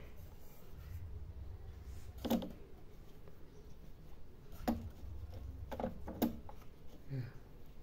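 Handling noise as a portable turntable is wrapped in a soft non-woven cloth sheet: a low rumble of rubbing, with four short light knocks.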